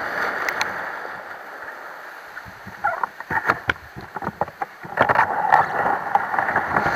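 Breaking surf and whitewater rushing along a kayak's hull as it runs in to the beach: a steady wash at first, then irregular splashing and slaps against the hull from about three seconds in, loudest in the last two seconds.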